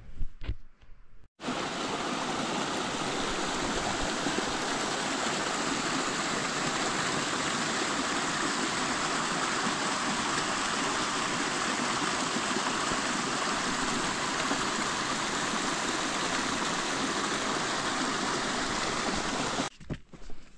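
Small mountain stream cascading over mossy rocks in little waterfalls: a steady rush of falling water that starts abruptly about a second and a half in and cuts off just before the end. A few brief thumps come before it.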